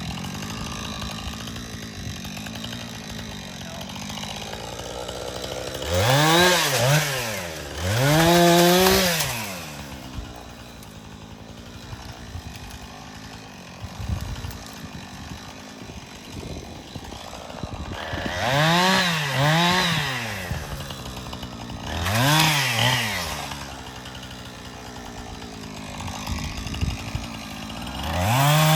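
Two-stroke chainsaw idling, revved several times in short bursts that rise and fall back to idle, some of them in quick pairs.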